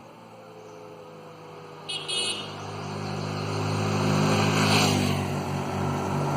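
Motor vehicle engine running steadily and growing louder as it comes close, peaking about five seconds in, with a short sharp high sound about two seconds in.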